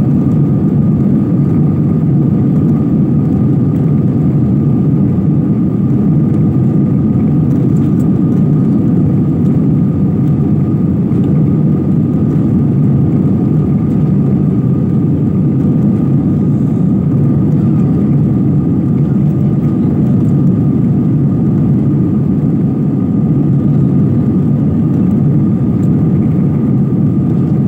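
Steady cabin noise of an airliner's jet engines and rushing air, heard from a window seat as the plane climbs: a dense low rumble with a thin steady tone on top.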